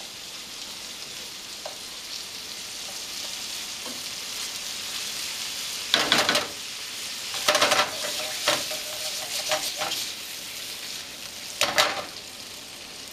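Shrimp, scallops and crab meat sizzling steadily in butter and olive oil in a frying pan, with a wooden spoon scraping through the pan in a few short strokes, about halfway through, shortly after, and near the end.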